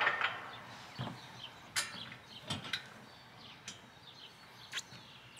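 Metal clicks and clinks as a hitch pin and its clip are worked through the steel hitch receiver of a hitch-mounted cargo carrier: about seven separate short, sharp clicks spread over a few seconds.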